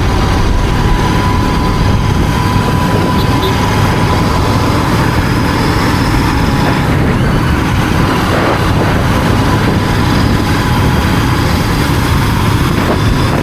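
Royal Enfield Continental GT 650's parallel-twin engine running under way, under a heavy, steady rush of wind on the microphone, with a thin steady whistle through the first half.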